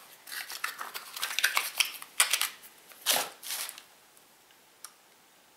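Cosmetic samples and packaging being handled: a quick run of small clicks, taps and rustles, with a brief swish about three seconds in, as items are moved and the next product is taken from the box. Then it goes quiet apart from one faint click near the end.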